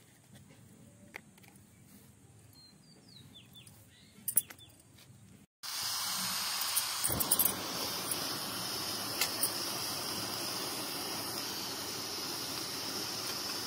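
Steady hiss of a gas burner on an LPG cylinder, starting abruptly about five and a half seconds in, with a few clicks and a knock soon after. Before that, only faint handling of a leaf being pinned shut.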